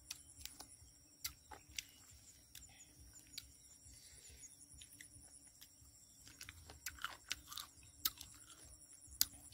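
A person chewing food close to the microphone: irregular soft clicks and smacks of the mouth, more of them a few seconds before the end.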